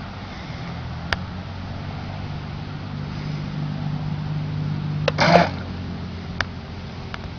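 Small electric motor of a 1:10 Double Horse Killer Whale Racer RC speedboat: a low hum, then a short loud rushing burst about five seconds in as the boat takes off across the water, after which a higher steady motor tone continues. A few sharp clicks along the way.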